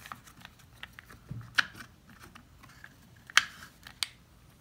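Scattered light plastic clicks and taps as the cap and spool of a Homelite string-trimmer head are handled and fitted together, with the nylon line rubbing against them. The sharpest clicks come about a second and a half in and about three and a half seconds in.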